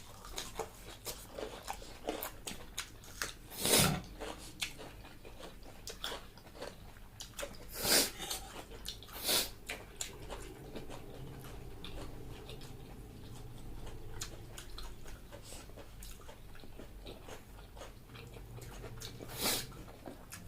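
A person eating close to the microphone: chewing and biting, with many small wet clicks and crunches and a few louder sharp sounds scattered through.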